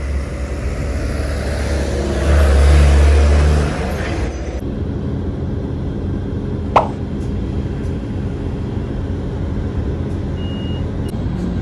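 A city bus and a truck driving past on the road, their engines' low rumble loudest about two to four seconds in. After that the background changes abruptly to a steady traffic hum, with one short falling blip about seven seconds in.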